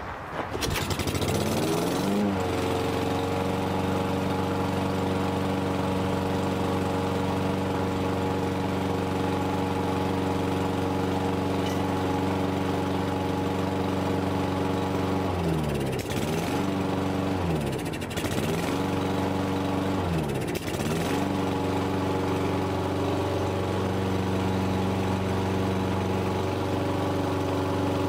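Toro Recycler 22-inch mower engine pull-started; it catches straight away, winds up within about two seconds and then runs steadily. About halfway through, its speed dips briefly and recovers three times. It starts and runs well now that its carbon-fouled spark plug has been cleaned, though the owner finds it idling rather low, which he puts down to emissions settings or a sprung governor spring.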